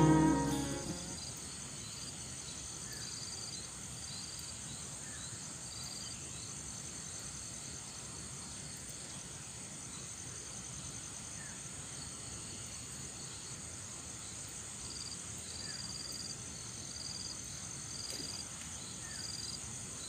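Faint insect chorus: a steady high hiss with short high chirps repeating in runs. Background ukulele music fades out in the first second.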